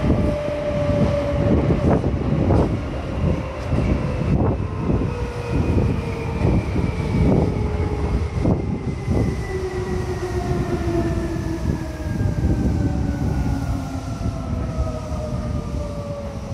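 Seibu 2000 series electric train running, heard from inside the car: a whine that falls steadily in pitch as the train slows into a station, with irregular clacks of the wheels over rail joints.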